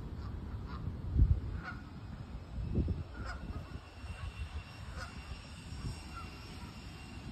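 Canada geese giving a handful of short, scattered honks from a grazing flock. Wind rumbles on the microphone underneath, with two stronger low gusts about a second in and near three seconds.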